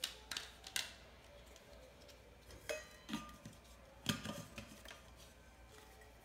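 Plastic agitator and screw-on lid clicking and knocking against an Ice Shaker stainless steel insulated shaker bottle as they are fitted together: a few sharp clicks, a brief metallic clatter near the middle, and a cluster of knocks about four seconds in.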